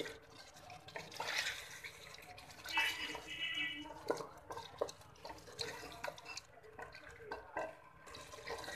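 Chicken pieces frying in oil with onion paste and tomato purée, a steady sizzle. A wooden spatula stirs them, with short scrapes and knocks against the pan.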